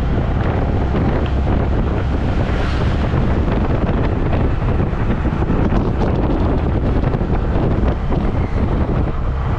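Heavy wind buffeting on the camera microphone while riding along a road in an open tuk tuk, a loud, steady rushing rumble.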